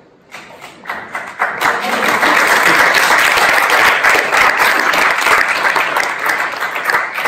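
Audience applauding: scattered claps begin just after the start and swell within about two seconds into full, steady applause.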